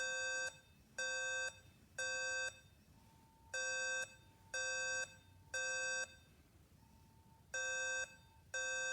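Fire alarm sounding the temporal-three evacuation pattern. Three beeps of about half a second each come a second apart, then a pause of about a second and a half before the next three.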